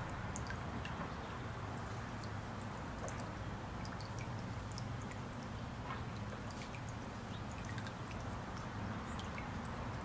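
Bird-bath fountain pump spurting water that falls back into the shallow basin: a steady trickle and splash with many small drips.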